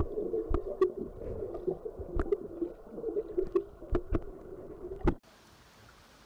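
Muffled underwater sound recorded with the microphone submerged in lake water: a low rumble with scattered sharp clicks and knocks. About five seconds in it cuts off suddenly to a faint, even outdoor background.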